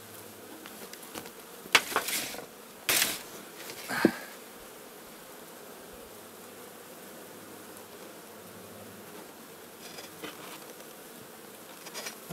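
Honeybee colony buzzing steadily at an open hive. Several sharp wooden knocks and scrapes in the first four seconds as the heavy wooden hive box is set back in place.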